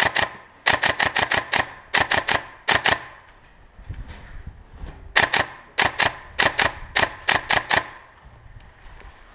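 Airsoft rifle firing close by in short rapid bursts of two to five sharp clacking shots. Several bursts come in the first three seconds, then a pause, then more bursts from about five to eight seconds in.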